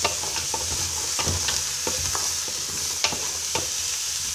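Mixed vegetables frying in hot oil with a steady sizzle, stirred with a spoon that scrapes and taps against the pot a couple of times a second.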